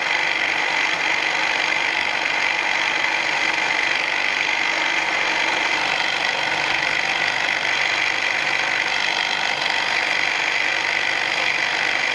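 EGO 56-volt cordless hedge trimmer running steadily, its blades working through a leafy hedge, with a constant high-pitched whine.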